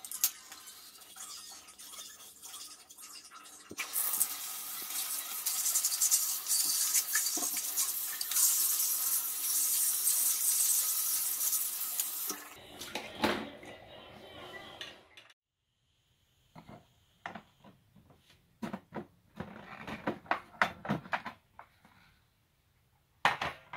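Water from a handheld shower head spraying onto a plastic fan impeller and grille on a tiled floor, a loud, even hiss for about eight seconds that then fades, between quieter scrubbing and clinking of the plastic parts. In the last third, scattered plastic clicks and knocks as the air purifier's front cover is taken off, with a sharp click near the end.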